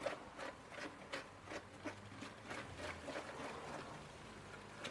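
Faint, irregular scraping and tapping, about three strokes a second, as a plaster, sand and water slurry is stirred smooth in a container; the strokes die away near the end.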